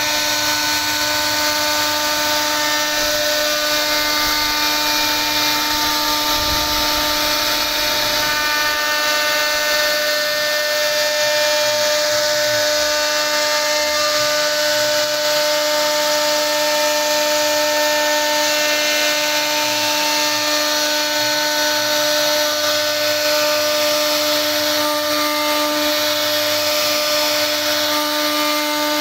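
CNC router spindle running at a steady whine while its carving bit cuts a relief pattern into wood, with a constant hiss from the cutting.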